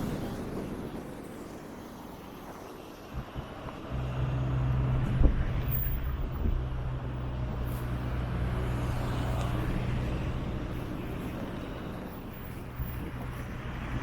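Road traffic on a town street: a steady low vehicle rumble sets in about four seconds in, with a single knock soon after.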